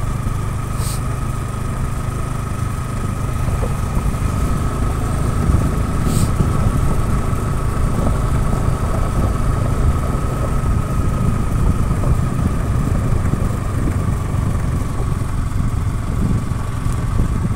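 Vehicle engine running steadily on the move, a low even hum with a thin steady whine above it.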